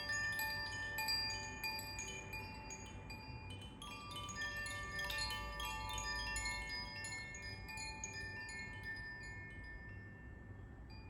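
Tuned wind chimes played by hand: quick, irregular tinkling strikes over several clear ringing tones that overlap and linger. The strikes thin out near the end, leaving the tones to fade.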